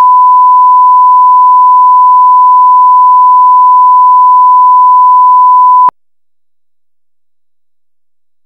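A loud, steady electronic beep held at one pure pitch, cutting off abruptly about six seconds in.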